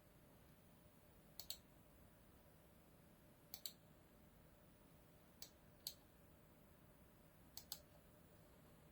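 Four quiet pairs of sharp clicks, a couple of seconds apart, each pair the press and release of a computer mouse button, over near silence.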